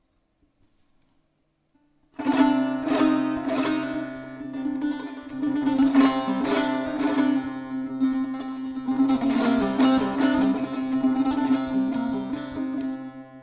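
Solo Persian long-necked lute strummed and plucked with the fingers, a quick melody over a steadily ringing drone note. It comes in suddenly about two seconds in, after near silence.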